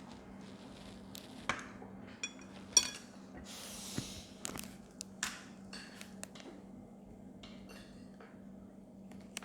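Eating utensils clinking and tapping against bowls and dishes during a meal. Scattered sharp clicks, the loudest a ringing clink about three seconds in, with a short rustling hiss around four seconds.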